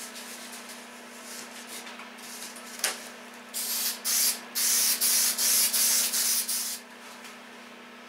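Aerosol can of spray adhesive hissing: two short bursts starting about three and a half seconds in, then a longer spray with brief breaks that stops near seven seconds. A sharp click comes just before, about three seconds in.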